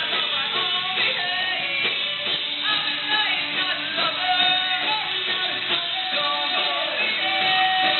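Rock music with guitars and a singing voice.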